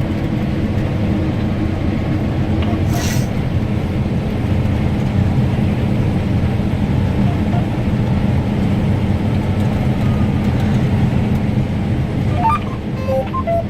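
Combine harvester cutting wheat, heard from inside the cab: a steady engine and machinery drone. A brief hiss comes about three seconds in.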